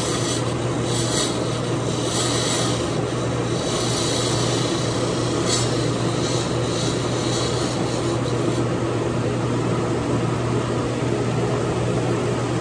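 Wood lathe running with a steady motor hum while a hand-held turning tool scrapes and cuts a spinning bocote duck-call barrel, cutting a small lanyard groove. The cutting comes in several hissing strokes over the first eight seconds or so, then only the lathe runs.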